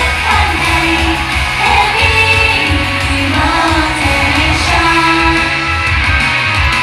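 Loud pop song with female singing over a backing track, played through a live stage sound system.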